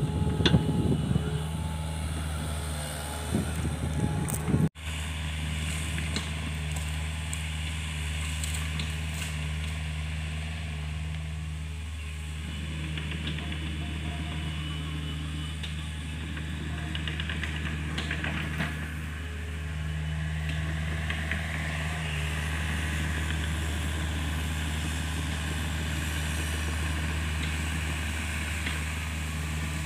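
A Hitachi mini excavator's diesel engine running steadily as the machine digs, with a few loud knocks and clatter in the first few seconds.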